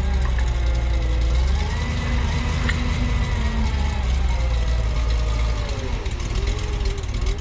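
Truck engine running steadily with a heavy low rumble, its pitch rising and falling slowly, as a load of sawdust is dumped out of the bed.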